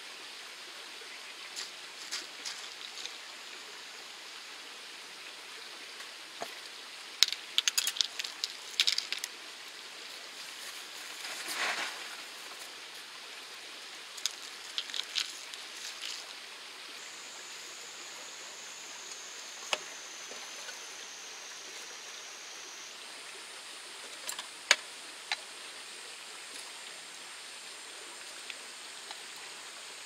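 Ice cubes clinking and rattling in a bowl in several short bursts as cold somen noodles are packed with ice by hand, over the steady rush of a mountain stream.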